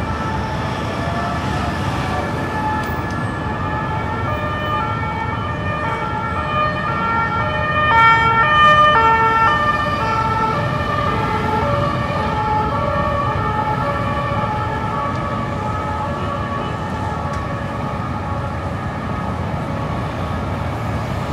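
Two-tone emergency-vehicle siren alternating between a high and a low note, loudest about eight seconds in as it passes, over steady street traffic.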